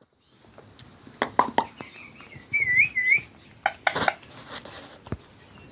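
Ringneck parrot giving a short run of wavering, up-and-down whistles, with several sharp clicks before and after.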